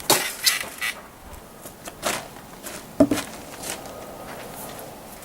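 A blade swung hard into riveted steel chainmail hanging over a padded gambeson. Several sharp metallic hits and jingling of the mail rings, with the loudest strike about three seconds in. The blow dents a link but does not cut through.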